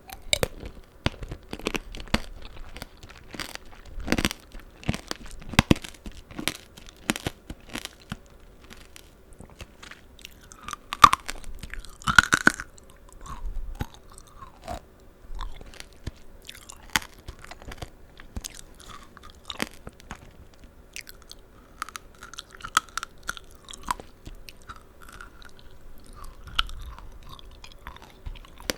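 Close-miked chewing of tanghulu, candied fruit with a hard sugar-syrup shell. The shell cracks in crisp crunches, densest in the first ten seconds, then gives way to softer, wetter chewing.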